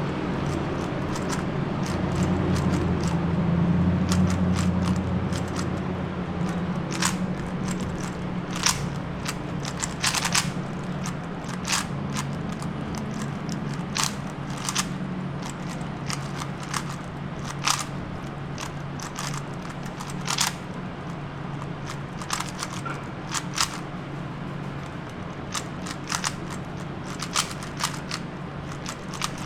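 3x3 Rubik's Cube being turned during a speed solve: its plastic layers click and clack in quick, irregular snaps. A low steady hum runs underneath.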